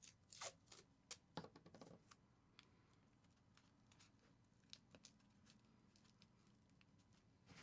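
Masking tape being pulled off its roll and torn, a quick run of crackles in the first two seconds, then faint scattered ticks as the tape is pressed down onto a foil-covered sculpture.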